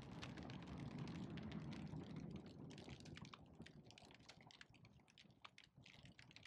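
Wood campfire crackling faintly: many small, irregular pops and snaps over a low rumble of flame that eases off about halfway through.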